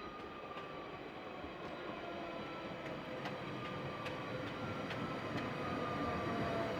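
Commuter train pulling in, its rumble growing steadily louder, with a whine that slowly falls in pitch as it slows and a few scattered sharp clicks.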